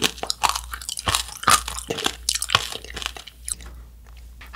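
Close-up chewing of a macaron coated in hardened tanghulu sugar syrup: quick, irregular crunches of the brittle candy shell breaking between the teeth. The crunching thins out and quietens near the end.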